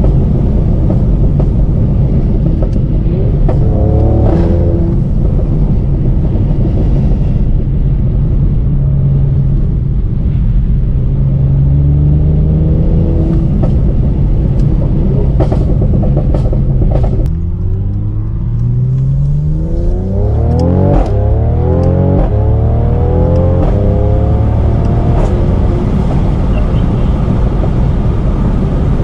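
Tuned Mercedes-AMG C43's twin-turbo V6 and exhaust under hard acceleration. The revs climb and drop back several times in quick succession in the second half, the pattern of fast gear changes, with sharp crackles and pops around the shifts.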